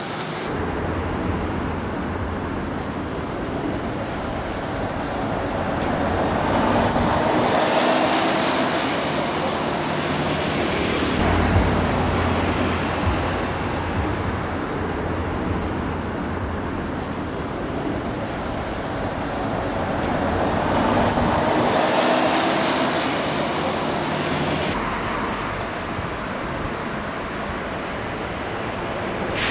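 Road traffic on a city street: vehicles passing, with tyre noise that swells and fades twice over a steady low rumble.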